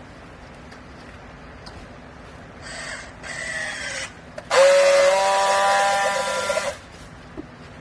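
Squealing and scraping during work at a hydraulic used-clothing baler, over a low steady hum: a scraping screech with falling pitch, then a louder squeal about two seconds long, held at one pitch, that cuts off suddenly.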